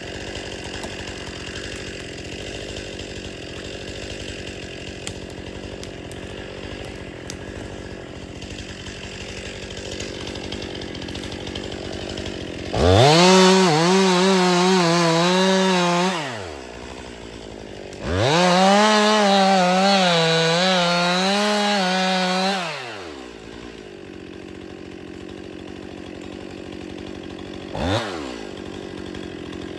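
Two-stroke chainsaw idling, then run up to full throttle twice, for about three and four seconds, with the high engine note wavering slightly and dropping back to idle each time. A quick blip of the throttle comes near the end.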